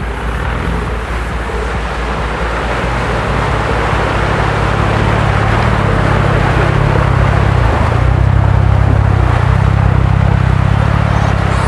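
Land Rover Discovery engine pulling hard under load as the truck climbs out of a muddy rut, a steady low engine note under a broad rushing noise, growing louder as it comes past.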